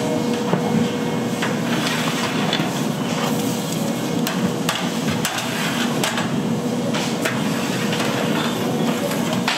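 Food-prep work noise: irregular sharp knocks and clatter over a dense background with a faint steady hum.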